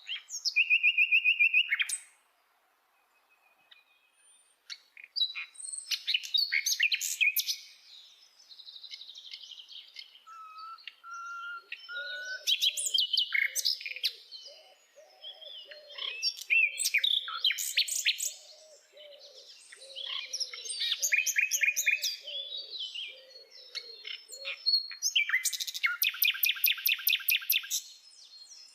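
Common nightingale singing: a varied string of phrases made of rapid trills of repeated notes, short clear whistles and chattering notes, broken by short pauses. Fainter low warbling notes run underneath through the middle, and a fast, loud trill comes near the end.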